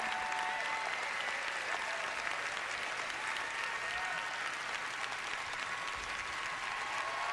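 Audience applauding steadily, with a few voices calling out over it.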